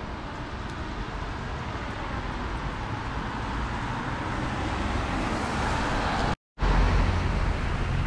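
Road traffic on a wet street: the hiss of a car's tyres on the wet road, growing louder as it approaches. The sound cuts out briefly about six and a half seconds in, and comes back with a deeper, louder rumble.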